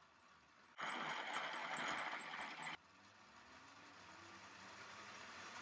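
Small electric motors whirring on a Lego Technic hovercraft speed-test rig. About a second in, a loud whir with a fast, regular ticking starts and cuts off about two seconds later. A quieter whir then builds steadily.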